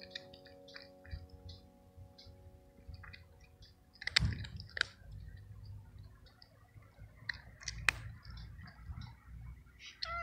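A tabby cat crunching small dry treats: a run of short, crisp clicks, with two sharper clicks about four and eight seconds in. The cat gives a meow right at the end.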